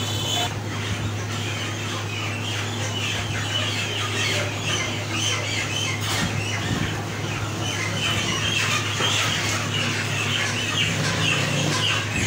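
Birds squawking and chirping without a break, over a steady low hum.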